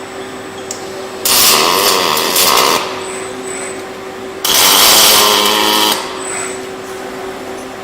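Two short robotic arc-welding tack welds, each a buzzing, crackling burst about a second and a half long, with a steady hum from the welding cell running underneath.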